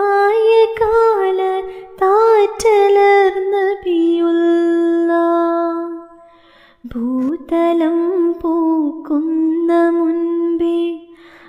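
A single high voice sings a Malayalam devotional song in praise of the Prophet Muhammad, with long, ornamented notes that waver in pitch. The singing breaks off briefly about six seconds in, then picks up again.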